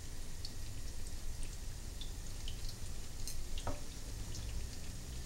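Spinach-and-vegetable batter fritters frying in hot oil in a pan: a steady sizzle with scattered small pops and crackles, and one louder pop past the middle.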